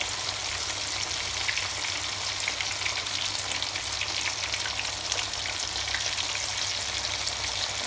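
Beef chapli kababs frying in hot oil in a pan: a steady, dense crackling sizzle while a spatula turns a kabab over.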